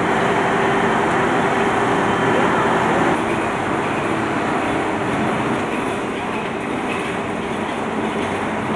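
Steady machinery noise with a low hum running under it, typical of a sheet-metal workshop floor with hydraulic machines running.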